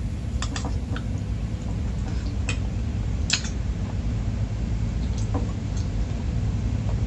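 Spoon and fork clinking and scraping against a metal pot in a few scattered light clicks, with eating sounds as a bite is taken, over a steady low hum.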